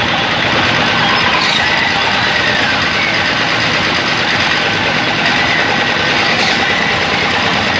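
Steady, loud engine-like machine drone, unchanging throughout, with faint steady high tones over it.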